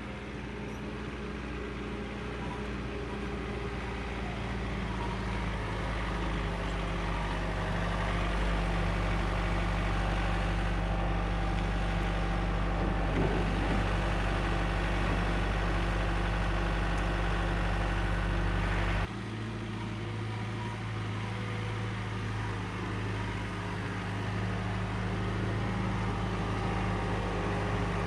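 John Deere compact tractor's diesel engine running steadily, growing louder over the first several seconds as it drives closer; about two-thirds of the way through the sound drops abruptly and carries on at a steadier, slightly lower level.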